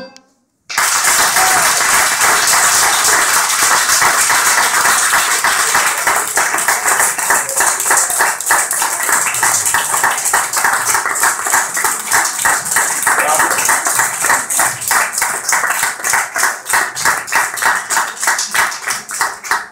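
Audience applauding loudly, starting abruptly about a second in. In the second half the applause breaks into distinct, evenly spaced claps.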